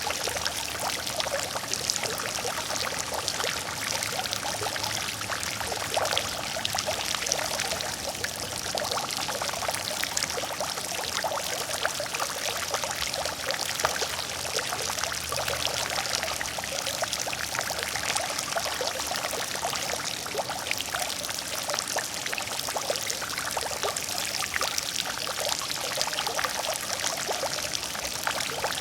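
Water fountain splashing steadily, water falling and pouring into a pool with many small droplet splashes.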